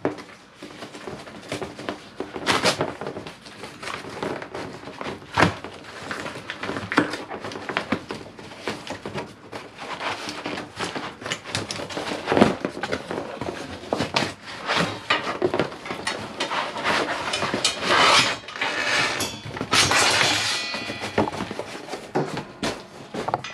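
A large cardboard shipping box being opened and unpacked by hand: cardboard and packing material crackling and rustling, with frequent knocks and thumps, and louder rustling stretches about three quarters of the way through.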